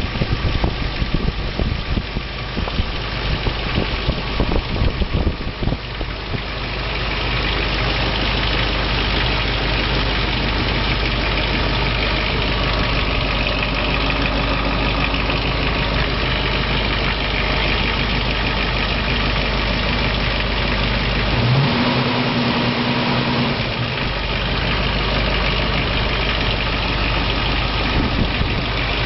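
Car engine idling, uneven for the first several seconds and then running steadily. Partway through, a short rising tone and a held tone appear for a couple of seconds.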